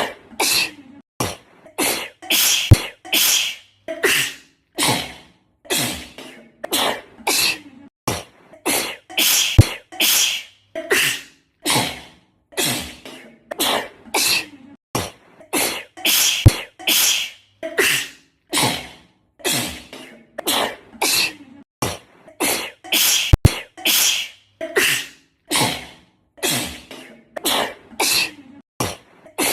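A girl's sneezing fit: short, sharp sneezes one after another, more than one a second, with a few much louder ones. The run of sneezes is an edited loop.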